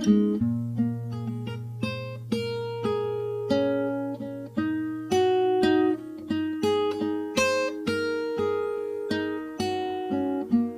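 Instrumental passage of an indie song: a guitar picking single notes in a slow melody, with a held low note under the first half or so.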